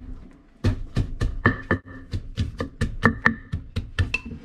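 Wooden pestle pounding in a Thai clay mortar: a fast, steady run of dull knocks, about five a second, starting about half a second in, with some strokes ringing briefly.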